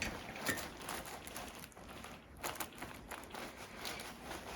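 Soft rustling with a few faint, light clicks: hands, clothing and the patient shifting on a chiropractic treatment table between adjustments.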